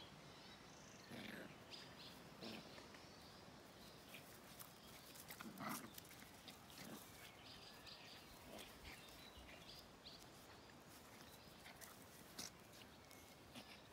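Near silence, broken by a few short, faint animal noises from a puppy play-wrestling with its companion. The clearest comes about six seconds in.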